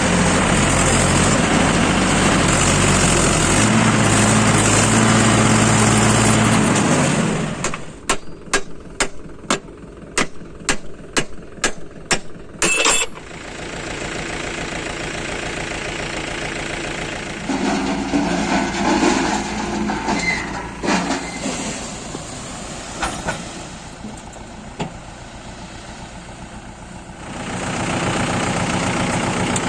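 Heavy diesel engines of earth-moving and farm machinery running, loud at first. Partway through comes a run of about a dozen sharp clicks, about two a second. The engine sound then drops to a quieter run and swells loud again near the end.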